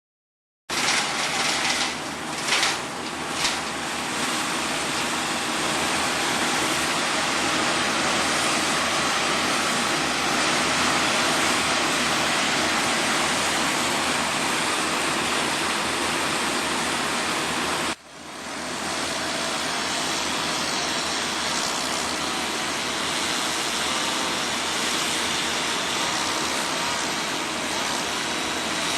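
Loud, steady noise of engine-driven tree-removal machinery running, with a few brief surges early on. It breaks off for a moment about 18 seconds in, then resumes.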